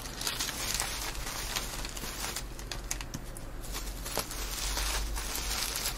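Plastic bubble wrap rustling and crinkling irregularly as gloved hands fold it around computer parts.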